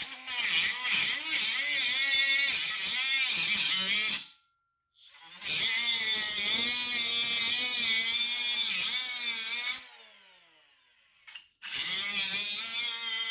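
Cordless power tool cutting into an old ATV tire, run in three bursts of about four, four and two seconds with short pauses between, its pitch wavering as it loads and unloads in the rubber.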